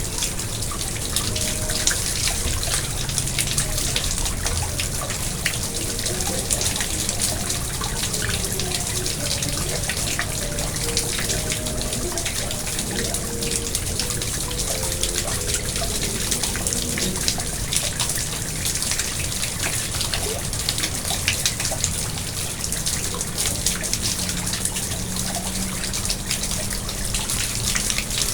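Garden pond water splashing and trickling steadily and without a break.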